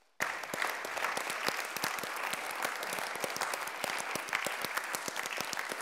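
Audience applauding, a steady patter of many hands clapping that starts suddenly right at the beginning.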